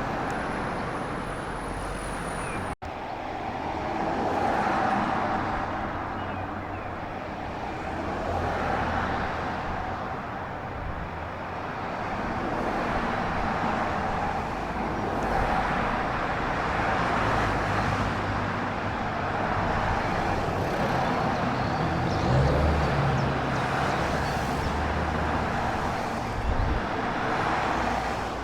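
Steady vehicle running noise that swells and fades every few seconds, with a brief dropout about three seconds in.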